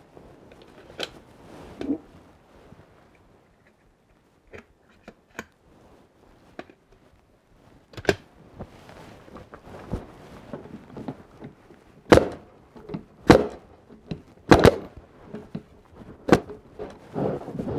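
Bostitch 16-gauge pneumatic crown stapler firing 2-inch staples into the wooden boards of a beehive super: a series of sharp shots with lighter knocks of wood between. The four loudest shots come in the second half, about a second apart.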